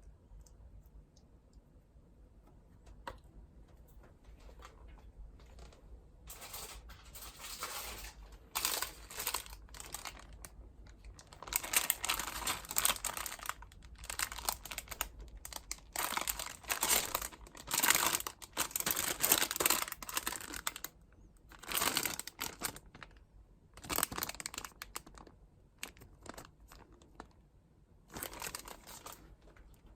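Crinkling, rustling and tearing of paper being handled, in irregular bursts that are loudest and busiest through the middle.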